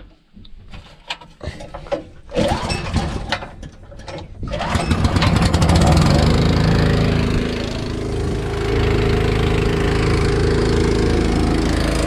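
Small engine of a portable air compressor being pull-started: scattered rattles and short pulls for the first few seconds, then it catches about four and a half seconds in, runs up and settles into a steady run.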